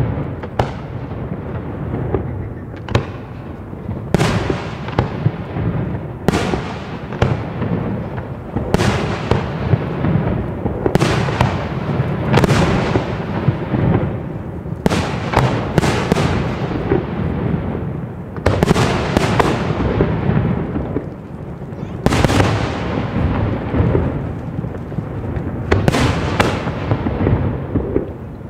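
Professional display fireworks (class F4 aerial shells) bursting in quick succession: a sharp bang every second or so, each trailing off in an echoing rumble, over a constant low rumble.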